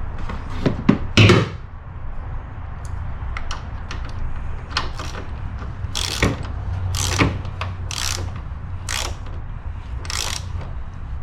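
Ratchet wrench clicking as a bolt is turned to mount a relay, in short strokes about once a second, with a couple of louder metal clanks about a second in.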